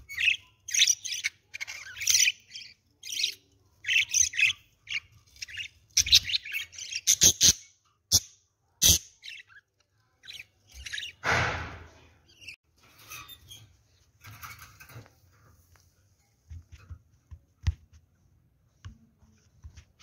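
Several budgerigars chirping and chattering in short, rapid bursts, dense through the first half and sparser afterwards, with a brief burst of noise about eleven seconds in.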